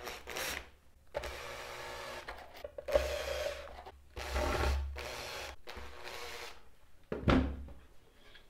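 Cordless drill-driver driving small wood screws into a fibreboard panel in several short runs, each about a second long, its motor humming as each screw turns in. A sharp knock near the end as the drill is set down on the workbench.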